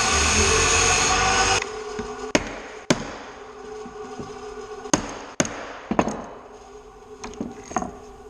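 A power tool running steadily cuts off about a second and a half in, followed by a string of about seven sharp knocks from a hammer, spaced unevenly over several seconds.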